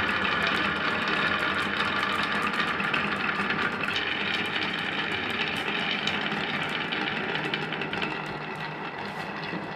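Marbles rolling and clattering down a marble run track: a continuous rolling rumble dotted with many small clicks as they hit the track and each other.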